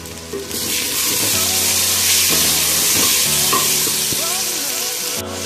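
Sliced onions and cumin seeds sizzling in hot oil in a metal pot as they are stirred and fried, with the spatula scraping and tapping now and then. The sizzle swells up about half a second in and cuts off suddenly just before the end.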